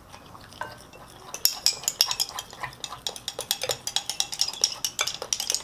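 A spoon stirring slime in a glass bowl, clinking and scraping against the glass. The clinks are rapid and irregular and begin about a second and a half in.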